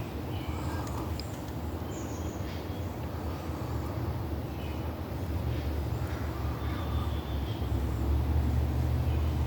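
Low rumble of a distant vehicle, growing louder near the end, with a few faint bird chirps.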